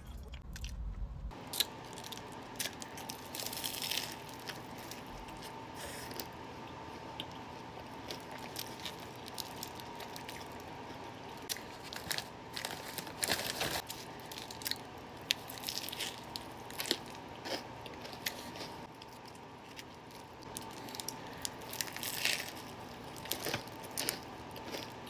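Close-miked eating: a person biting into and chewing a burrito, with irregular crunchy bites and wet mouth sounds, over a faint steady hum.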